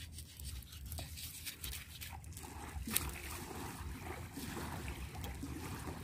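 Wet squelching and scraping as hands and a knife work a raw tuna fillet, pulling flesh and skin away from it, with many small clicks and a sharp click about three seconds in, over a steady low rumble.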